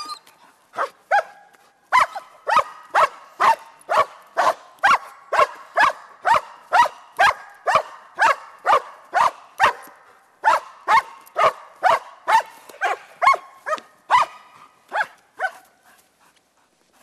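German Shepherd barking steadily at a training helper, about two sharp barks a second, without biting: the bark-and-hold of protection training. The barking stops shortly before the end.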